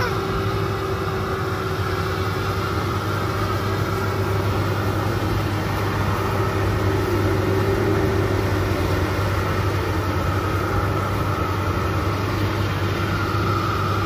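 Maxxi Bimo rice combine harvester's engine running at a steady, unchanging drone.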